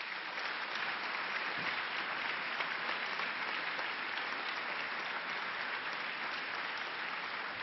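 Audience applauding steadily: many people clapping together at the end of a lecture.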